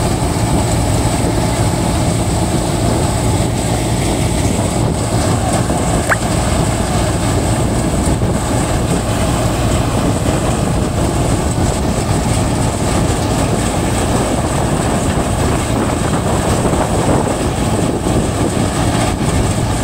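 Tractor-driven groundnut thresher running steadily while threshing, its drum and blower churning through plants over the tractor's engine. The result is a continuous loud mechanical din with a low hum and a thin high whine.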